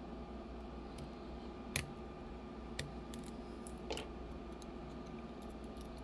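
Scattered small sharp metallic clicks of a lock pick working the pins inside a CX-5 high-security lock cylinder, about five in all with the loudest just under two seconds in. A steady background hum runs underneath.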